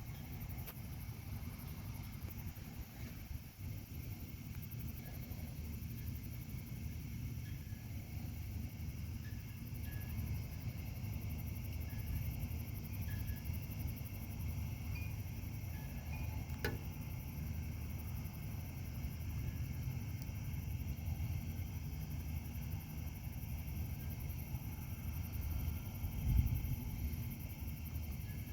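Steady low wind rumble with a high hiss, and a few faint short high tinkling notes scattered through it; a single sharp click about two-thirds of the way in.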